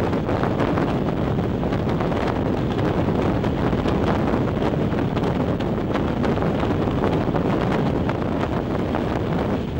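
Wind buffeting the microphone held out of the window of a moving regional train, over the steady running noise of its wheels on the rails.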